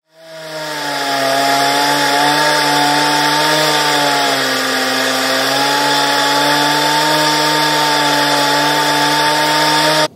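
Chainsaw engine running steadily at high revs, its pitch wavering slightly. It builds up over the first second and cuts off abruptly near the end.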